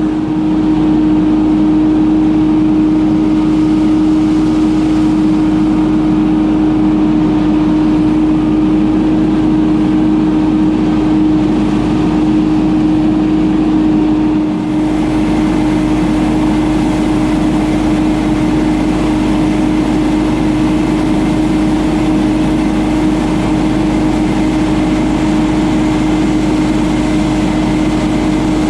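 Ferris FB2000 Hurricane stand-on debris blower running steadily, its Briggs & Stratton Vanguard engine and blower fan making a loud, even drone with a steady hum. The level dips briefly about halfway through, then carries on unchanged.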